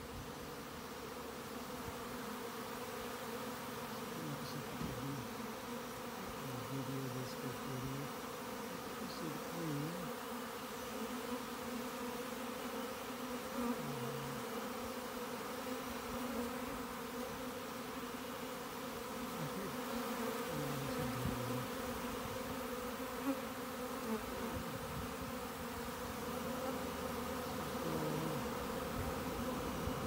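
A swarm of honeybees buzzing: a steady drone of many wings, with single bees now and then flying close past, their hum briefly rising and falling in pitch.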